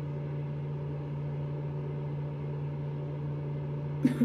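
Steady low mechanical hum with a faint hiss over it, and two short knocks close together near the end.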